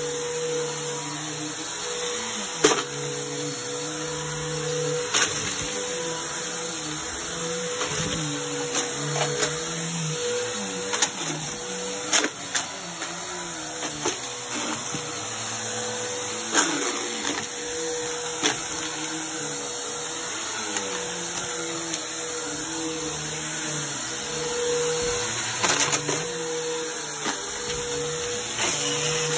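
Bagless upright vacuum cleaner running on carpet with a steady motor whine, broken every few seconds by short sharp clicks and crunches as bottle caps, buttons and coins are sucked up into it.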